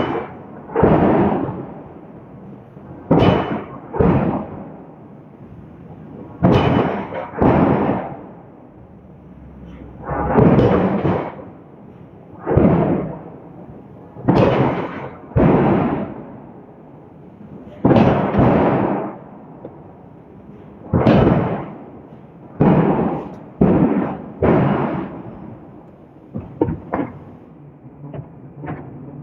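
Hydraulic forging hammer striking a hot steel billet: heavy blows at irregular intervals, often two close together, every couple of seconds, each dying away briefly after the hit.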